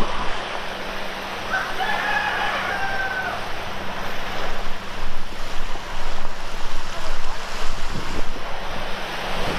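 Steady wash of surf and wind, with one drawn-out, fairly level-pitched call lasting about two seconds, starting about a second and a half in. A faint low steady hum runs underneath.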